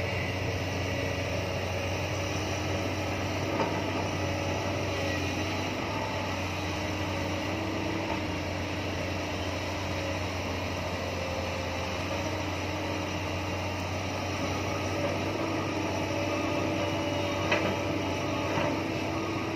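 JCB crawler excavator's diesel engine running steadily, with a hydraulic whine that shifts slightly in pitch as the machine digs and swings its boom. Near the end come a couple of short knocks.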